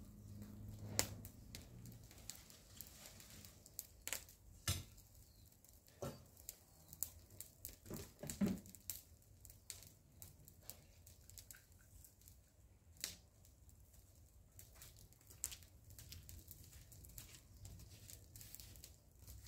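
Faint rustling of plants with scattered sharp crackles and snaps, from a person working among garden plants and walking over dry grass and leaves.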